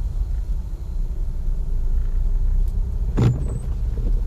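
Steady low rumble of a car heard from inside the cabin while driving, with one short knock about three seconds in.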